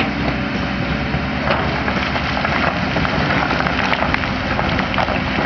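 Diesel engine of a JCB backhoe loader running steadily, with frequent metallic clanks and rattles from the working machine, more of them from about a second and a half in.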